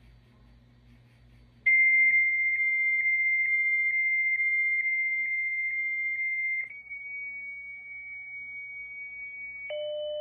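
Dial-up modem answer tone coming down the phone line: a steady high whistle with a faint tick about twice a second. About two-thirds of the way in it switches to a slightly higher steady tone. Near the end a lower tone joins as the modem handshake begins.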